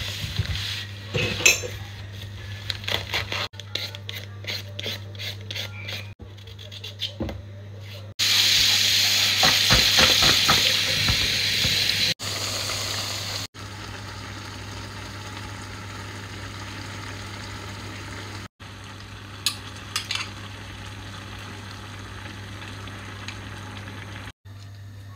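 Kitchen cooking sounds in a row: potatoes and utensils handled with scattered clicks and knocks, then a tap running for about four seconds, then food sizzling steadily in a pan on the stove. A low steady hum lies underneath throughout.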